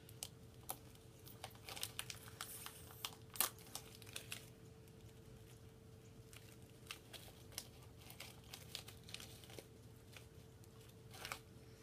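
A small snack packet of almonds crinkling and tearing as it is opened and handled. The crackles come thickly in the first few seconds, then sparsely.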